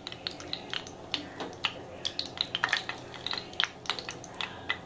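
Whole spices (bay leaf, cinnamon stick, cardamom pods) frying in hot oil in a frying pan, the oil crackling with many quick, irregular pops.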